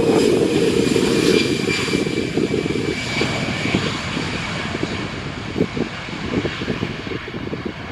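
Jet engines of a Citilink Airbus A320 rolling along the runway: a loud low rumble that drops away about three seconds in, with a high fan whine that sinks slightly in pitch and fades as the aircraft moves off.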